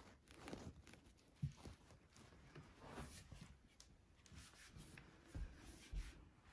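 Faint rustling and crinkling of a paper towel as a Shih Tzu puppy mouths and paws at it, with a few soft low bumps.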